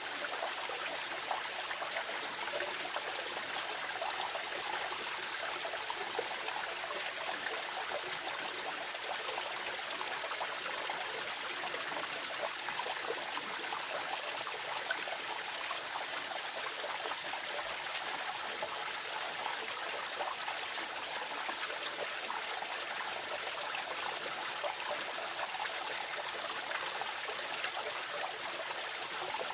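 A shallow forest stream running over pebbles: a steady rushing trickle, bright and hissy, with small splashes flickering through it.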